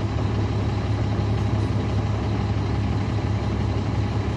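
Caterpillar C13 ACERT diesel engine of a 2009 NABI 40-SFW transit bus running steadily, heard from on board as an even, low hum with no change in pitch.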